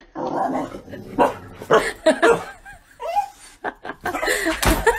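A dog barking in short, separate bursts, mixed with a person laughing.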